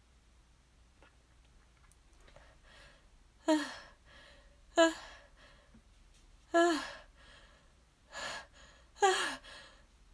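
A woman's vocal sneeze buildup: about five breathy, voiced 'ah' gasps, each falling in pitch, one to two seconds apart, starting a few seconds in. The sneeze does not come and stays stuck.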